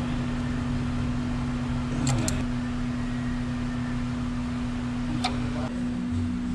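Hand tools clicking against metal a few times, a close pair about two seconds in and another past five seconds, as the ABS module bracket nuts and brake line fittings are tightened. A steady hum runs underneath.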